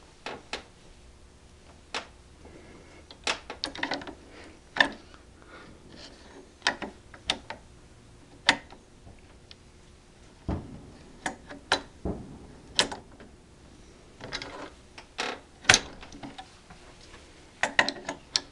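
Irregular metallic clicks and knocks from a barrel nut wrench and torque wrench being worked on an AR-15 barrel nut, coming singly and in short quick clusters with pauses between.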